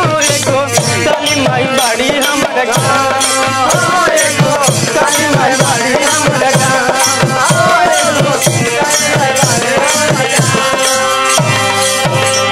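Devotional folk music in an instrumental passage: a harmonium melody over a steady dholak beat, with jingling hand percussion throughout.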